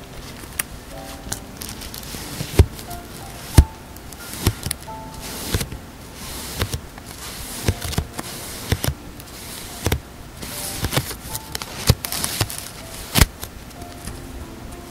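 Metal earrings clicking and tapping as they are handled up close, with sharp irregular clicks. A clear plastic wrapper crinkles, mostly in the latter half.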